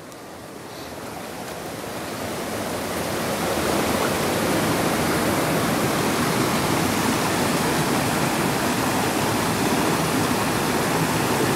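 Rocky mountain river rushing over boulders, a steady noise of flowing water that grows louder over the first few seconds and then holds steady.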